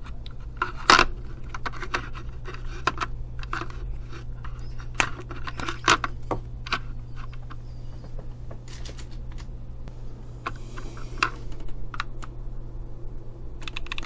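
Irregular clicks, taps and knocks of a small plastic electronics case being handled: the 9 V battery unclipped from its snap connector and pulled from its compartment, the case handled on a wooden bench, and a screwdriver fitted into a case screw near the end. A short scrape comes a little after halfway.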